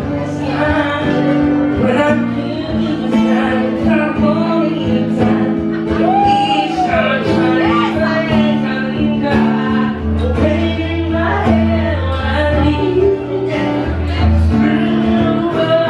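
Live acoustic set: a strummed acoustic guitar with a man singing, a second voice joining.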